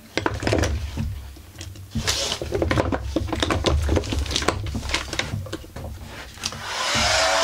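Metal tools and chainsaw parts being handled on a workbench: a run of irregular clinks and knocks. Near the end an electric heat gun switches on and runs with a steady blowing noise, its fan tone rising as it spins up.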